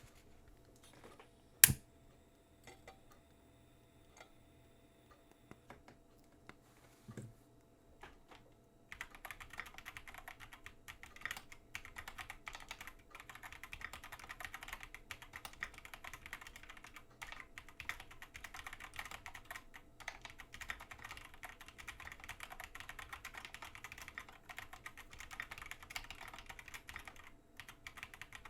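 Typing on a GMMK Pro mechanical keyboard with stock Tecsee Golden linear switches, an FR4 plate and PBT keycaps. For the first several seconds there are only scattered single keystrokes, with one loud sharp clack near the start. Steady, fast typing begins about nine seconds in.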